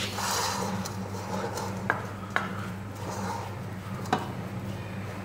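Wooden spoon mashing steamed sweet potato and taro in a stainless steel pot: a continuous soft scraping and stirring, with three sharp knocks of the spoon against the pot, two close together about two seconds in and one near four seconds.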